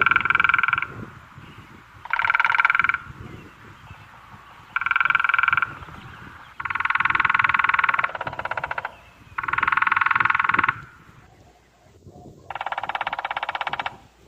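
Woodpecker drumming on a tree: six rolls of rapid knocks, each about a second long, coming every two to three seconds.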